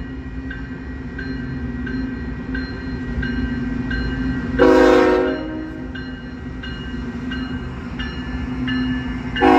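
Union Pacific freight train's diesel locomotives rumbling as they approach a grade crossing, with a bell dinging about twice a second. A loud multi-note air horn blast about halfway through lasts about a second, and a second blast starts just before the end.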